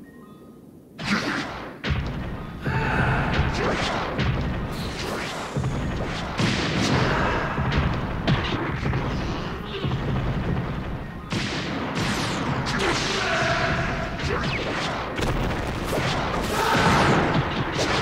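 Tokusatsu giant-monster battle sound effects: heavy booms and thuds of impacts and stomps, with pitched cries over them and a music score underneath. The sound starts suddenly about a second in and keeps going densely.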